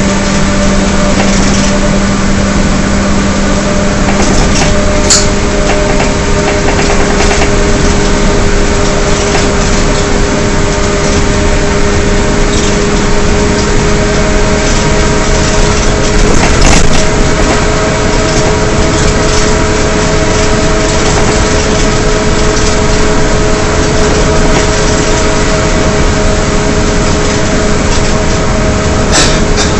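2009 Gillig Advantage transit bus with a Cummins ISL diesel and Allison B400R transmission, heard from inside while cruising: a steady drivetrain howl, two whining tones that slowly climb in pitch over loud road noise. A lower hum fades out about halfway through, and there are a couple of brief knocks.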